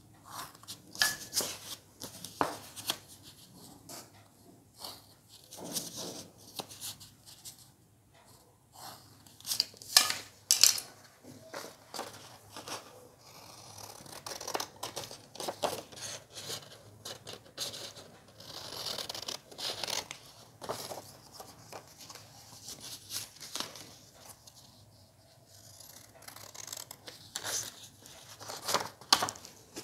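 Scissors snipping through a sheet of offset paper: irregular runs of sharp cuts with short pauses between them, the loudest around ten seconds in.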